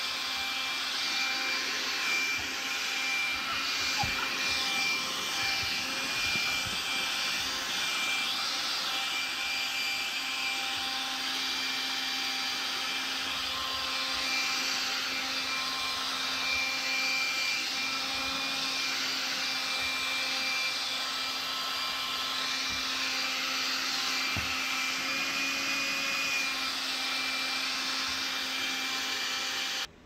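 Stick vacuum cleaner running steadily, a constant rush of air with a high whine, as its nozzle is worked over a rug and cushions. There are a couple of brief knocks, one about 4 seconds in and one near the end.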